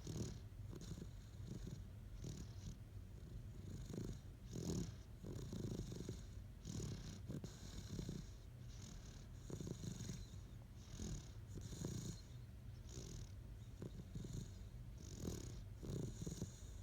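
Great Dane snoring in its sleep: a low rumbling snore with an airy hiss on each breath, repeating roughly once a second.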